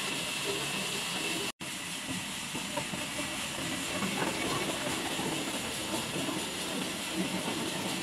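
Sawmill machinery running with a steady, hissing mechanical noise. The sound cuts out for an instant about a second and a half in.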